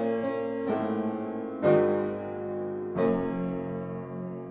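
Slow piano music: chords struck every second or so, each left to ring and fade.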